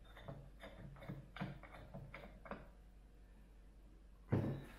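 Light clicks and knocks of a telescope mount being handled and fitted onto its tripod head: a quick run of small taps, then a louder knock near the end.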